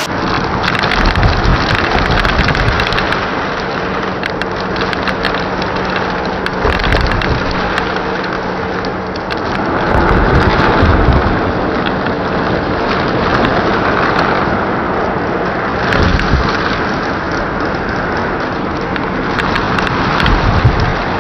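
Vacuum cleaner running with a hose and round tool, sucking up a pile of glitter, foil scraps and plastic beads off a wooden floor: a steady motor hum under a dense crackle of clicks and rattles as the pieces are pulled in, swelling a little about halfway through.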